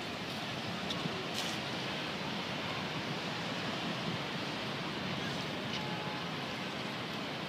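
Steady outdoor ambient noise: an even wash of open-air background sound with a couple of faint ticks about a second in and no single distinct source standing out.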